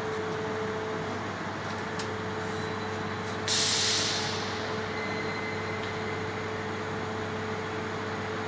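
Fiber laser metal-cutting machine running with a steady hum and a faint steady tone. About three and a half seconds in, a loud burst of hissing air starts abruptly and fades over about a second.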